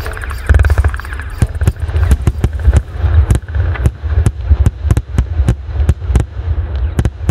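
Fireworks going off: a rapid, irregular string of sharp bangs and crackling pops, a few each second, over a steady deep rumble.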